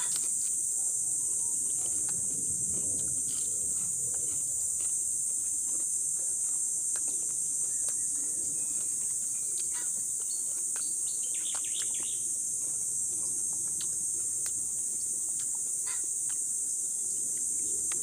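A steady high-pitched drone of insects, crickets or cicadas, with a few brief bird chirps about two-thirds of the way in. Scattered small clicks and crunches come from eating crispy fried pork by hand.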